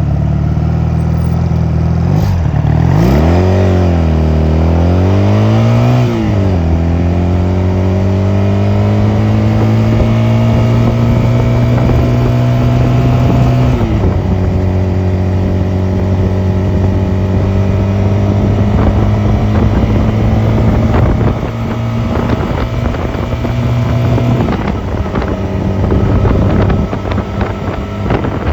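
Honda 250cc motorcycle engine running under way: the engine note dips and rises in the first few seconds, then climbs slowly and steadily, drops suddenly about halfway through, climbs slowly again and drops once more near the end.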